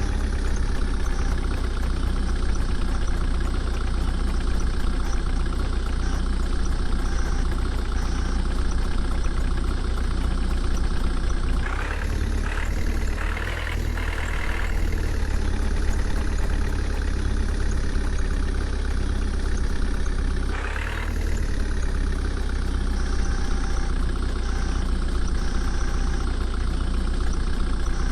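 Heavy diesel engine running steadily at a low, even speed, with a strong low rumble. A few short hissing sounds come in near the middle and again about three-quarters of the way through.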